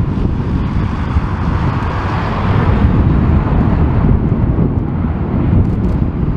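Jet airliner passing, its engine rush swelling to a peak about two to three seconds in and then easing, under heavy wind buffeting on the microphone.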